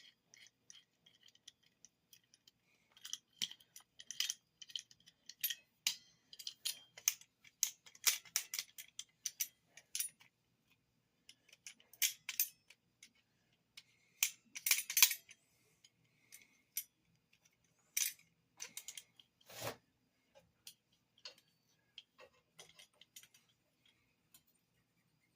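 Steel vise-grip locking pliers being handled, adjusted and clamped on one after another: scattered sharp metallic clicks and clinks with short pauses between them.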